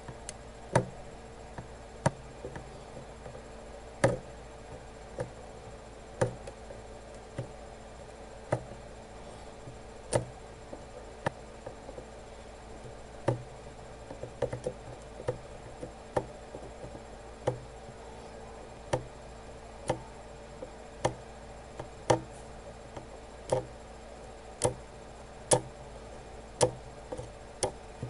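Light, sharp taps and clicks of a soldering iron and tools against a circuit board while soldering the pins of a surface-mount chip. The taps come irregularly, about one a second, over a faint steady hum.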